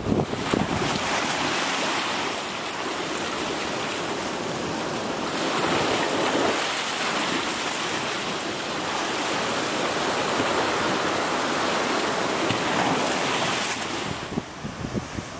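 Hurricane-driven surf breaking and rushing against a rocky shore in strong wind, the wind buffeting the microphone at the start. The level drops suddenly near the end.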